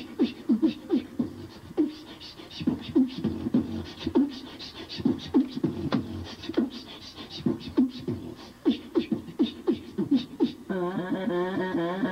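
Beatboxing, a man's mouth behind cupped hands making a steady rhythm of bass thumps and sharp clicks. Near the end a voice comes in over the beat, singing a wavering, warbling line.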